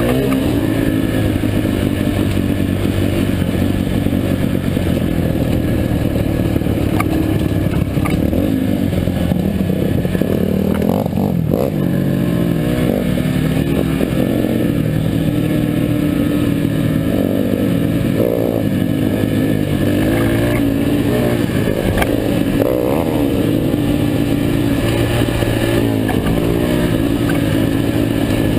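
Four-stroke Yamaha dirt bike engine running hard along a rough trail, its pitch rising and falling with the throttle. Scattered knocks and clatter come from the bike going over the bumpy ground.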